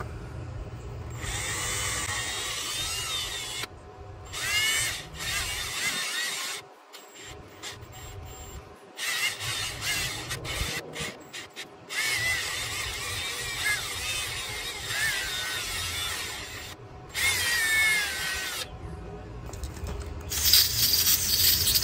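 Cordless drill spinning a small bit wrapped in steel wool in short runs, its pitch rising and falling as it is started and stopped. It is scouring green corrosion out of the pins of an outboard motor's wiring connector. Near the end an aerosol can hisses as the connector is sprayed.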